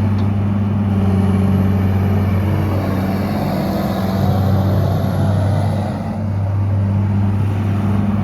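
John Deere 200LC hydraulic excavator working, its diesel engine running steadily under load. Over the first few seconds a whine rises and falls as the hydraulics are worked, likely while digging.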